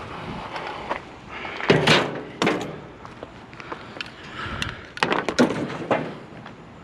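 Household junk being rummaged through and moved about by hand: a few loud clattering knocks and rattles, one cluster about two seconds in and another about five seconds in.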